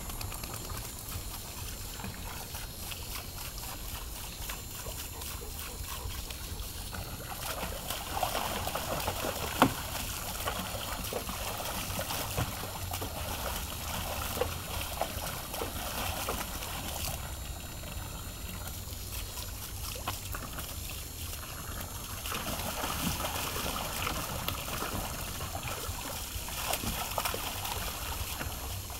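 A garden hose stream trickling steadily into a plastic wading pool while a dog paws and snaps at the water, splashing it about. There is a stretch of splashing in the middle and another near the end, with one sharp slap about ten seconds in.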